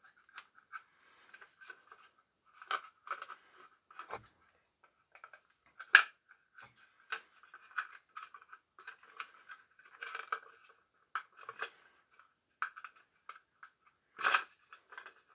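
Plastic housing of an LRS R8500 restaurant pager being pried apart with a small screwdriver: irregular creaks, clicks and small snaps as the case halves come apart, with a sharp snap about six seconds in and another near the end.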